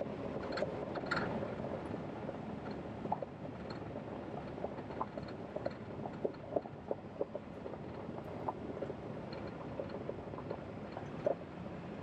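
Vehicle rolling up a gravel road: a steady rumble of tyres and engine, with scattered sharp clicks and pops of loose stones under the tyres.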